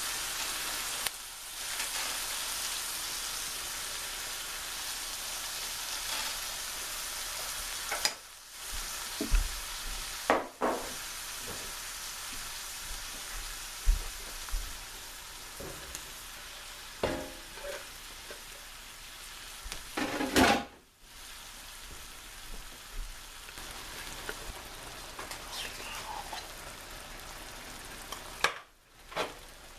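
Onions and garlic sizzling in hot oil in a pan, with stirring and occasional clinks of the utensil against the pan. The sizzle drops out briefly a few times.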